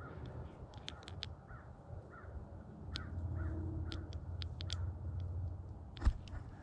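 Quiet outdoor ambience with a few faint, short bird calls and scattered light clicks close to the microphone, a low rumble in the middle, and a single sharp thump about six seconds in.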